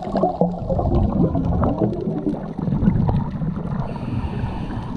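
Underwater noise picked up by a GoPro just below the surface: water sloshing and bubbling against the camera with a low rumble and scattered sharp clicks.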